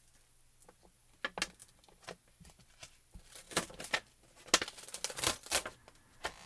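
Clear photopolymer stamps being handled: peeled off their plastic carrier sheet and pressed onto an acrylic block, giving irregular small plastic clicks, taps and crinkles, busiest in the second half.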